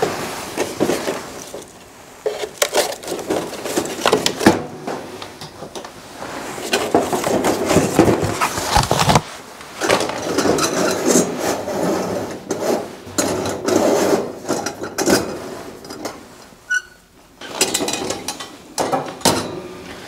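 Cardboard packing being pulled out of a kerosene heater and its metal burner cylinder lifted out: irregular rustling and scraping with light metal knocks and clicks.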